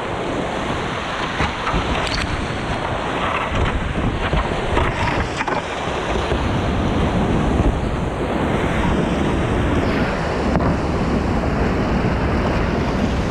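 Whitewater rapid rushing loudly around a kayak as it runs down over rock ledges through the current, with a few sharp knocks in the first six seconds.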